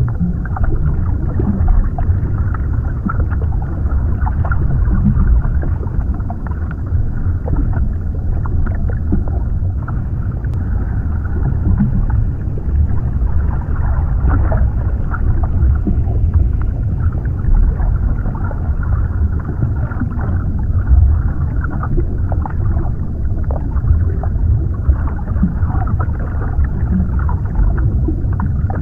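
Underwater ambience: a steady, deep rumbling wash of water, with many small crackles and clicks scattered through it.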